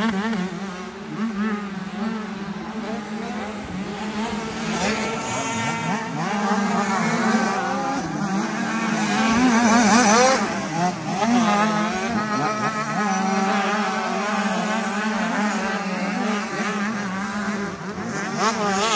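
Several motocross bikes revving and shifting around the track, their overlapping engine notes rising and falling. The loudest moment is a bike passing close about ten seconds in. A steady low hum runs underneath.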